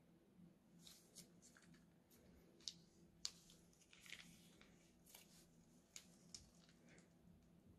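Faint crinkling and soft squishing of a plastic piping bag being squeezed, pushing thick red liquid out into a bowl, with a couple of sharp ticks about three seconds in.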